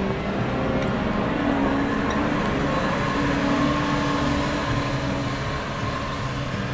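Diesel engine of heavy earthmoving equipment running steadily under load, its pitch drifting a little as it works.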